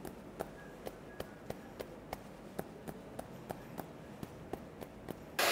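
Fingertips tapping quickly and evenly on a head, about three light taps a second. Near the end the iTeraCare wand's fan switches on abruptly with a loud, steady hair-dryer-like blowing.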